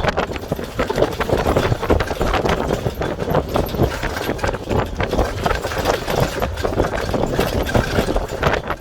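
A vehicle running, with dense irregular knocking and rattling throughout.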